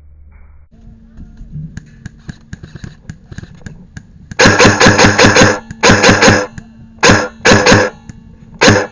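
Airsoft electric gun firing on full auto from close by: five rapid bursts of shots with the gearbox whine under them, the first about a second long and the rest shorter, starting about four seconds in. Before that, only faint scattered clicks.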